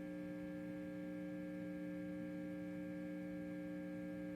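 Steady electrical mains hum, several stacked tones holding an even level throughout, the kind of hum an amplified guitar rig or studio signal chain puts out when nobody is playing.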